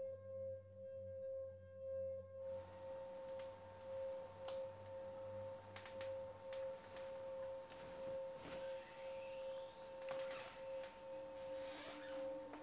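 A sustained, pure electronic drone tone in the film's soundtrack, holding one pitch and swelling and fading about once a second. Faint scattered clicks come in over a light background hiss after a couple of seconds.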